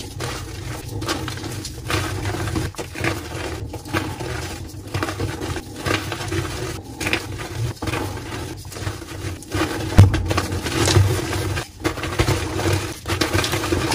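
Gloved hands crushing and crumbling blocks of dyed gym chalk: continuous dry crunching and crackling as the blocks break into powder, with a louder crack about ten seconds in.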